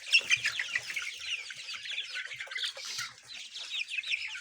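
A large flock of month-old colour bird chickens (a coloured broiler breed), about a thousand birds, cheeping and clucking together in a dense chorus of short, overlapping high calls.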